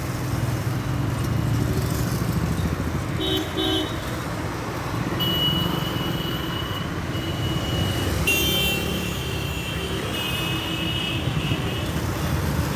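Busy street traffic: a steady rumble of car and motorcycle engines with vehicle horns honking several times, including a short double honk, a long held horn and a couple of longer blasts.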